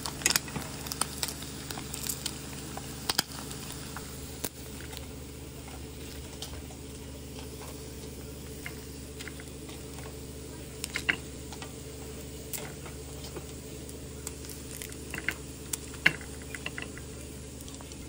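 Whole bluegill deep-frying in a wok, the oil crackling and popping now and then with sharp clicks, over a steady low hum.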